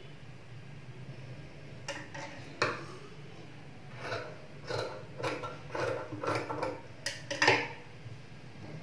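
Cloth being handled at a sewing table: scattered rustles and light clicks and knocks as a fabric strip is picked up and positioned at the sewing machine, over a low steady hum.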